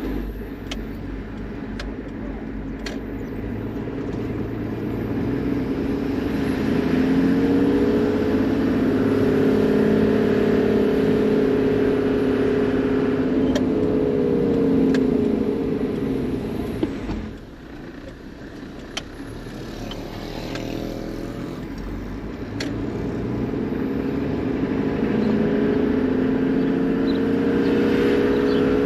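Toyota Land Cruiser HZJ78's 4.2-litre straight-six diesel engine running while driving. Its pitch rises and falls with speed, drops briefly about 17 seconds in, then climbs again.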